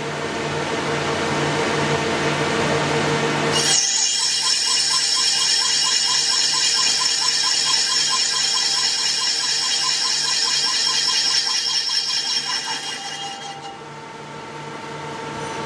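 Lathe hard-turning hardened steel with an indexable insert: steady machining noise with a high-pitched whine that changes abruptly about four seconds in and dies away near the end.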